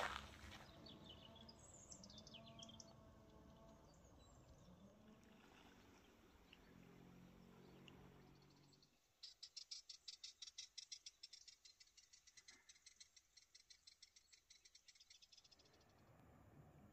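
Faint high chirps, then a dry, rapid rattle of evenly spaced clicks that starts about nine seconds in and stops after about six seconds, like a small animal's rattling call.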